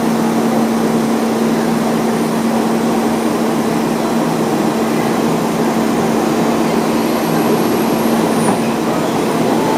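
JR Kyushu KiHa 40-series diesel railcar pulling slowly into a station platform. Its diesel engine runs with a steady low hum over a broad rumble.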